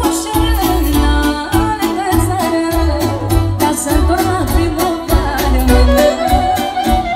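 Live manele band music: a woman singing into a microphone over clarinet, keyboard and a steady beat with a pulsing bass.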